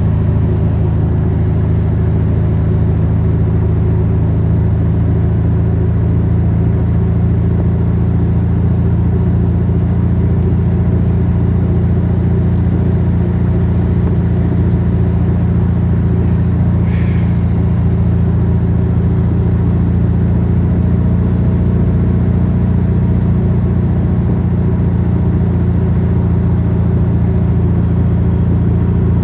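Motor vehicle engine running at a steady speed, a constant low drone with no change in pitch.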